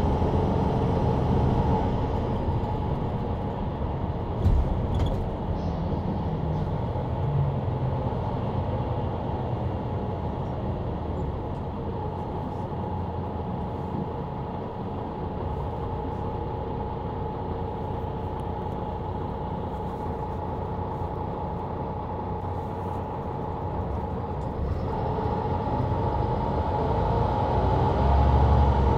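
Mercedes-Benz Citaro C2 LE city bus with a ZF EcoLife automatic gearbox, heard from the rear seats while driving: engine and drivetrain run steadily with a constant whine, and there is one knock about four seconds in. The sound grows louder again near the end as the bus pulls harder.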